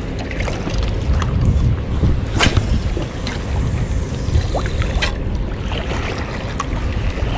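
Wind buffeting an action camera's microphone: a steady low rumble, with two short sharp clicks about two and a half and five seconds in.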